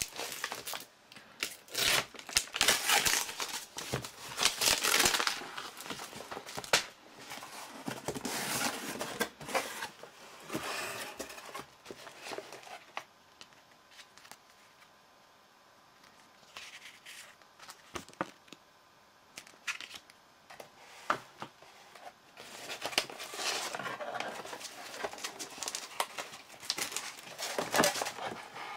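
Packaging being handled while a CPU cooler is unboxed: irregular crinkling and rustling of wrapping and packing paper in the cardboard box, in loud bursts with a quieter stretch in the middle.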